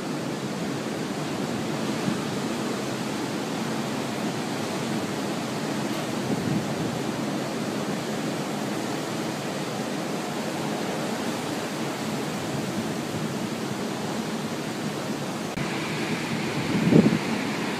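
Steady rushing noise of hurricane wind and surf, with a louder gust buffeting the microphone near the end.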